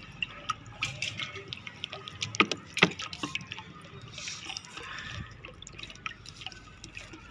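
Water poured from a plastic bottle into a shallow metal bowl, splashing and trickling, with many small sharp drips and clicks, the loudest two about two and a half to three seconds in.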